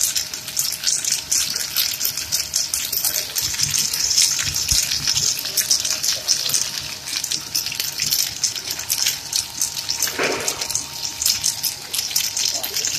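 Kurkure-type corn snack extruder running: a steady, loud hissing rush dotted with fine crackles as the corn strands are pushed out of the die head, with a faint machine hum underneath.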